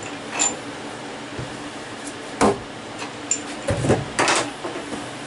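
A few sharp knocks and clatters from handling at a CNC mill's table and vise, over a steady machine-shop hum. The loudest knock comes about two and a half seconds in, and a quick run of knocks follows near four seconds.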